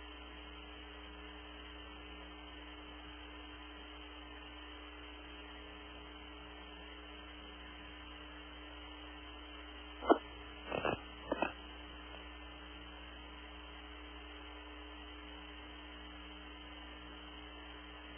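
Steady electrical hum on a narrow-band audio feed, with a few short sharp clicks about ten to eleven and a half seconds in.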